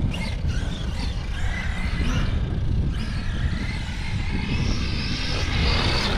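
Arrma Mojave 6S EXB RC truck's brushless motor and drivetrain whining as it is driven, the whine rising and falling in pitch several times as the throttle is worked. A steady low rumble runs under it.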